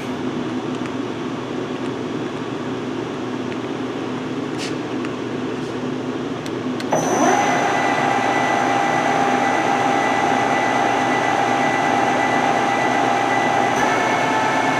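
Clausing CKE6140Z CNC lathe running under test with a steady mechanical hum. About halfway through it steps up abruptly to a louder, higher whine, typical of the spindle and gearbox coming up to a higher speed. Near the end the pitch of the whine shifts again.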